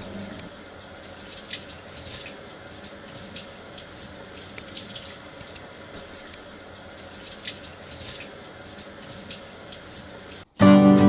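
Steady running water, like a tap running into a sink. Acoustic guitar music starts abruptly near the end.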